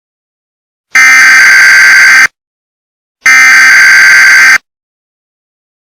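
Two loud, harsh electronic buzzes of about a second and a half each, the second starting about a second after the first ends. They are the data-burst alert tones that close a mock Emergency Alert System message.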